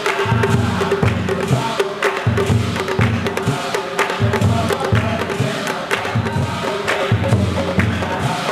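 Devotional drumming on large laced barrel drums, low booming strokes in a steady repeating rhythm, with sharp hand claps and strikes over it.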